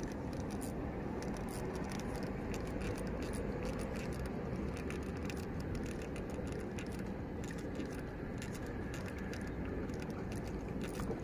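Steady low rumble of wind and surroundings at the shore, with faint light rattling ticks from a spinning reel being cranked to retrieve a lure.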